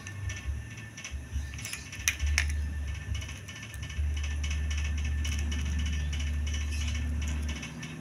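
Hot glue gun's trigger mechanism clicking a few times as glue is fed out, followed by several seconds of low steady rumble.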